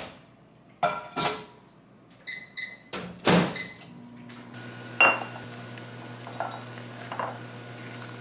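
An over-the-range microwave oven being loaded and started: the door clicks open, things knock inside, short electronic beeps sound, and the door thuds shut. About five seconds in it starts running with a steady low hum.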